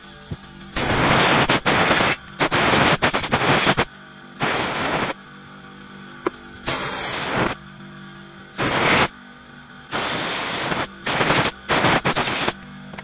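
About eight loud hissing blasts from a pressurised jet, each half a second to a second and a half long, switched on and off abruptly while sawdust and grime are cleaned off a chainsaw and its bar.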